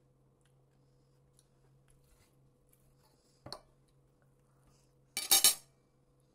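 A fork clinking against a ceramic plate while eating: one short clink about halfway through, then a louder quick cluster of clatters near the end.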